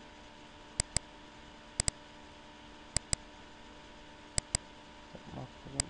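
Computer mouse clicking: sharp double clicks, five pairs about a second apart, over a steady electrical hum and faint hiss.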